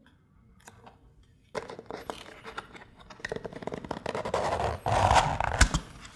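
Stiff plastic takeout bowl lids being handled and pried off noodle bowls: crackling and scraping of plastic with many sharp clicks, starting about a second and a half in and loudest near the end as a lid comes off with a few hard snaps.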